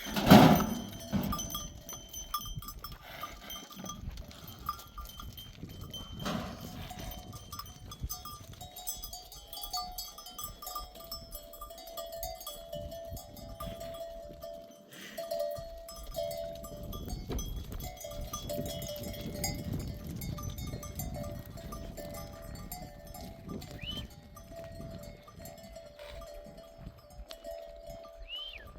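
Bells worn by a flock of sheep ringing irregularly as the animals move and graze, with a loud short sound right at the start.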